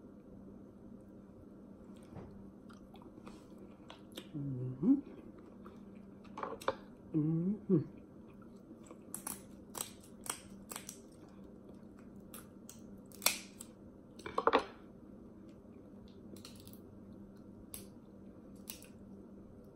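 Snow crab leg shells cracking and being snipped with kitchen shears: a string of sharp snaps and clicks, thickest in the middle, under quiet chewing. Two short hummed vocal sounds come about four and seven seconds in.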